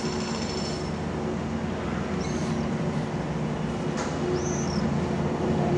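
Diesel train engine idling steadily out of view, a low hum with a few held pitches. Two short high chirps come about two and four seconds in.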